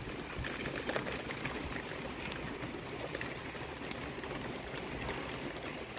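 Heavy rain pouring down, a steady hiss of rainfall with many small raindrop ticks scattered through it.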